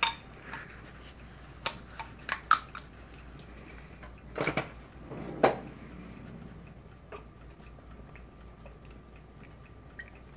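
Scattered sharp clicks and taps of a red bottle being handled over a mixing bowl, with two louder knocks about four and a half and five and a half seconds in, then only faint ticking.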